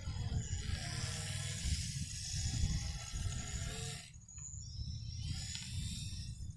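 Radio-controlled model biplane flying past, its motor and propeller making a hissing whir that swells for about four seconds, drops away, and comes back briefly near the end. Wind rumbles on the microphone underneath.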